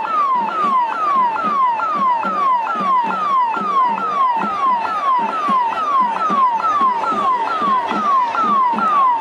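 An electronic siren sounds a rapidly repeated falling note, about three sweeps a second, over the noise of a large crowd.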